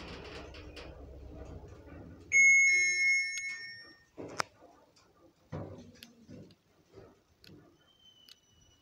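Lift car travelling with a steady low hum that dies away as it slows, then an arrival chime about two seconds in, ringing for over a second. A sharp click follows as the car stops, then soft knocks and clicks from the lift mechanism and a short high beep near the end.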